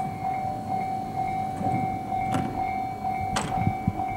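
E131 series electric train standing at the platform, giving a steady whine that swells and fades slightly a few times a second over a low rumble. Two sharp clicks come about two and three and a half seconds in.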